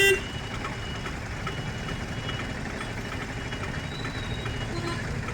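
A vehicle engine running steadily, with a short loud horn beep at the very start.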